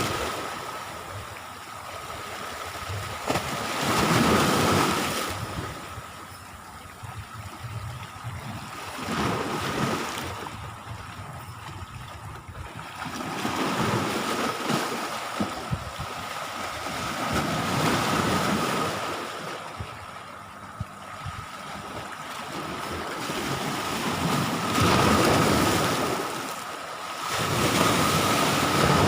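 Sea waves washing onto the shore, the noise swelling and falling away every few seconds, with wind buffeting the microphone. A faint steady high tone runs underneath.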